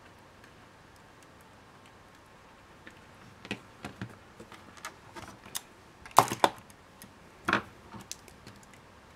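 Small, sharp clicks and taps of jewellery pliers and wire being handled as a wire loop is worked, starting about three seconds in, with the loudest cluster of clicks a little past the middle.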